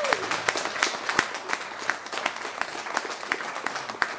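Audience applauding, many separate hand claps standing out, just after the jazz trio's song has ended.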